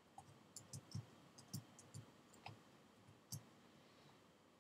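Faint computer keyboard keystrokes: about a dozen uneven clicks as single letters and the tab key are typed, stopping about three and a half seconds in.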